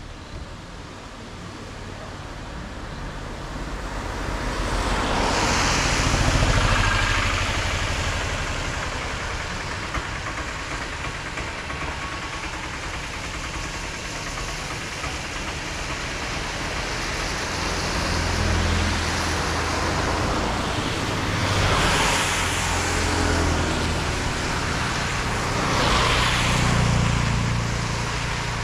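Several vehicles passing one after another on a wet road, each a swell of tyre hiss over a low engine hum that rises and fades. The loudest pass comes about six seconds in, and three more follow in the second half.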